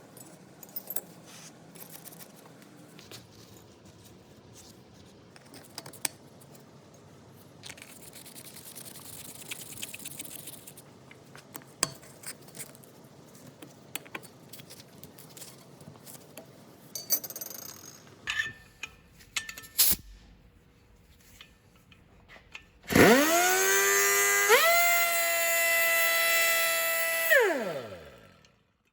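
Nitto Kohki MAG-70 air angle grinder test-run: small clicks and handling taps, then the air motor starts with a quick rising whine, steps up to a higher steady whine, and spins down falling in pitch when the air is shut off.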